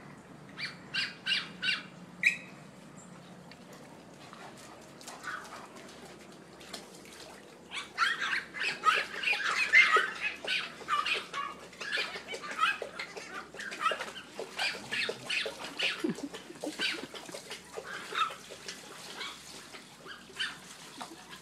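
Water sloshing and splashing in a plastic kiddie pool as an Irish Wolfhound wades in and lies down, a busy run of short splashes that starts about a third of the way in. Near the start there are five short squawking calls.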